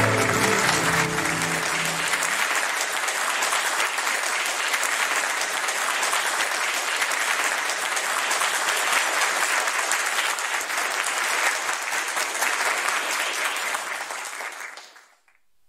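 Concert audience applauding steadily, fading out near the end.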